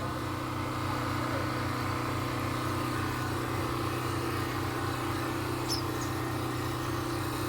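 A motor or engine running steadily nearby, a constant low hum with a few fixed pitches.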